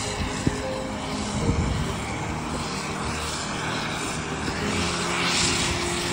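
Airbus A350's Rolls-Royce Trent XWB turbofans running at approach power as the airliner comes in on final approach with its gear down; the high rushing hiss grows louder near the end as it nears. A sharp click sounds about half a second in.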